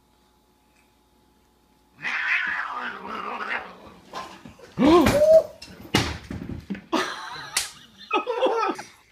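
Two cats fighting: yowling starts about two seconds in, with a loud gliding screech near the middle, a couple of sharp knocks as they scuffle, and more yowling near the end.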